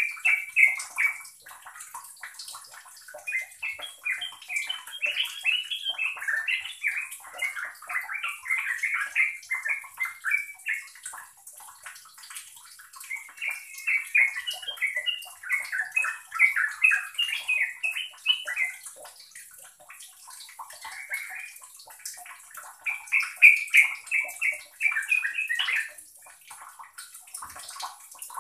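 Yellow-vented bulbul singing: long phrases of rapid, bubbly, chattering notes, each lasting several seconds, with short pauses between them.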